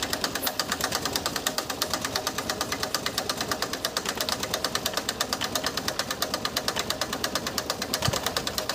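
A 1973 Yugoslav-built tractor's engine idling, its exhaust puffing in a rapid, even beat. A balloon fitted over the vertical exhaust pipe is being blown up by the exhaust.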